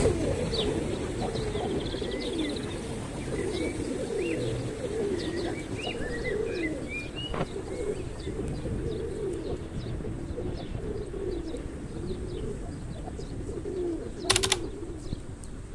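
A large flock of feral pigeons cooing continuously, many overlapping low wavering coos, with short higher chirps from other birds mixed in over a steady low background rumble. A sharp knock sounds about 14 seconds in.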